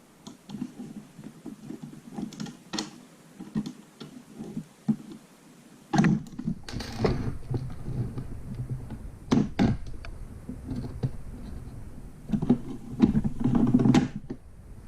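Clicks, taps and knocks of a metal M4-style gel blaster's parts being handled and worked apart during disassembly, with a few louder knocks about six seconds in, near ten seconds and toward the end.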